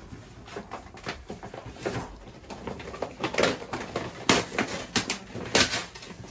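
Gift wrapping paper being torn and crumpled off a box: irregular crinkling and rustling, with a few louder rips in the second half.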